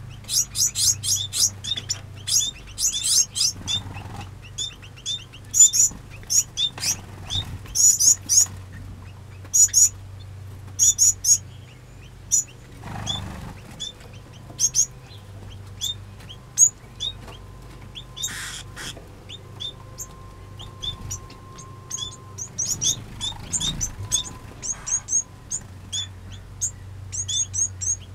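Aviary finches chirping continually with many short, high calls, some in quick runs. A few brief wing flutters come through as birds fly about.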